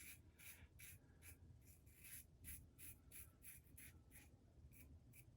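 Faint short scraping strokes of a Razorock Eco safety razor with a Gillette Nacet blade cutting stubble, about two to three strokes a second.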